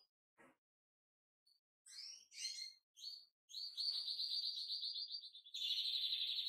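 European goldfinch singing: a few short twittering notes, then a fast rattling trill from about three and a half seconds in that runs into a dense, buzzy phrase near the end.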